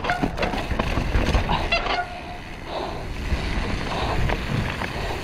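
Mountain bike clattering over rocks on a dirt descent, with sharp knocks from the wheels and frame and a brief squeal about two seconds in. After that it settles to a steady low rumble of riding noise and wind on the microphone.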